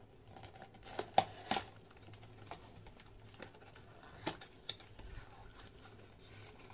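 A small cardboard box being handled and opened: a few sharp taps and snaps of the cardboard about a second in and again near the middle, between faint rustling of the plastic-bagged accessories inside.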